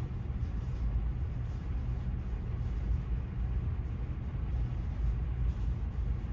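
Steady low rumble with a faint even hiss and no distinct events.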